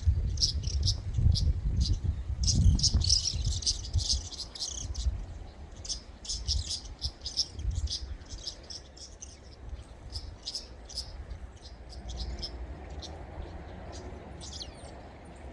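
Many short, high chirps repeating several times a second from small animals, denser about two to four seconds in. A low rumble of wind or handling on the microphone is heavy in the first half and eases off about halfway.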